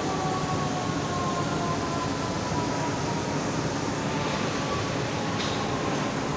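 Taphole of a 4020 m³ blast furnace blowing: a loud, steady rush of gas escaping from the tap hole, with two faint whistling tones slowly falling in pitch.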